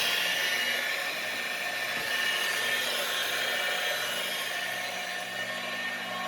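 Magnetic drill's electric motor running steadily as the spindle of a homemade lathe, a busy high-pitched whine over a low steady hum from the drill's electromagnet base.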